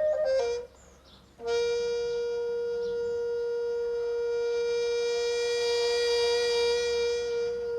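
A Korean traditional wind instrument playing solo: a few quick notes, a brief pause, then one long held note that swells slightly toward the end.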